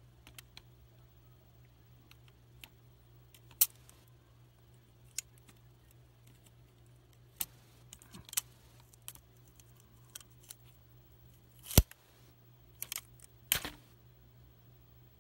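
Sharp, irregular snaps and crackles of small electric arcs as a homemade pencil-lead cutter touches aluminium foil. The loudest snap comes about twelve seconds in, with a cluster just after it. A faint steady low hum runs underneath.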